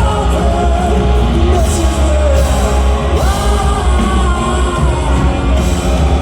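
Rock band playing live with a male lead vocal. The singer holds long notes that slide in pitch, over loud guitars and heavy bass, and one note rises and is held about three seconds in.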